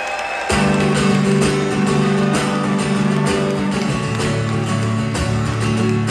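Crowd noise from an audience, then about half a second in an amplified acoustic guitar starts strumming chords played live.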